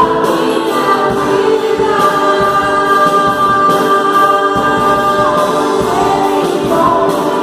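A choir of voices singing a gospel song, holding long sustained notes through the middle.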